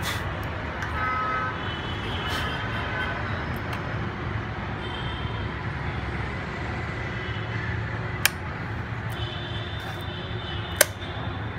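Two sharp clicks about eight and eleven seconds in as the Swift fusion splicer's fiber clamps and lid are snapped shut, over a steady outdoor traffic hum with a few faint short high tones.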